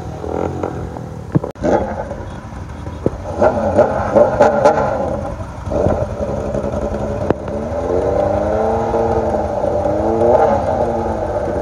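Several motorcycle engines running in a group, with engines revved and pitch rising and falling twice in the latter part.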